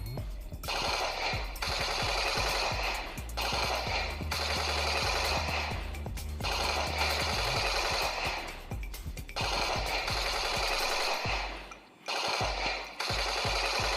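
Toy machine gun's electronic sound effect firing repeated bursts of rattling gunfire, each one to two seconds long with short breaks between.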